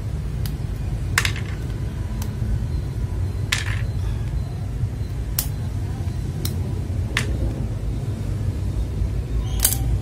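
Gateron CAP Milky Yellow V2 mechanical switches being handled on a hot-swap keyboard: sharp plastic clicks, about eight at irregular intervals, over a steady low rumble.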